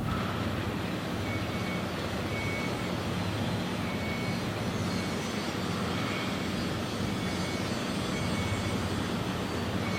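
Heavy construction machinery running steadily with a low hum, with a faint high-pitched beep repeating about once a second.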